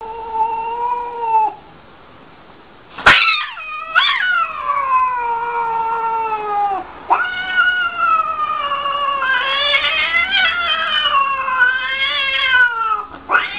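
Cat yowling in long drawn-out wails, the threat caterwaul of a cat standing with its back arched. A short call, a pause, then from about three seconds in two long wavering yowls, the first sliding down in pitch.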